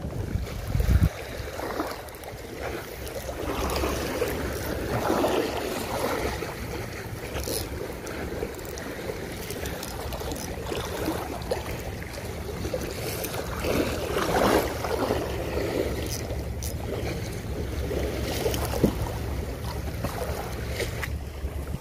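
Wind buffeting the microphone as a low rumble, with sea water washing in soft surges.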